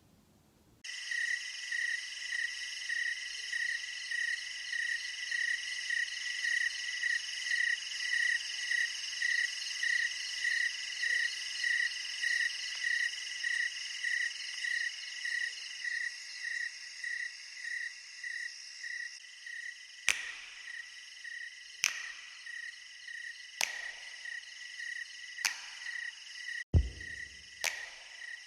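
A steady, high-pitched chirping animal chorus with a regular pulse about twice a second. Sharp clicks come every couple of seconds from about two-thirds of the way through, and deep thumps join near the end.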